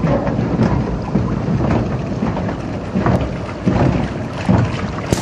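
Water rushing and splashing along a log flume channel as the log boat rides through it, a dense rumbling wash of sound with a few brief splashes.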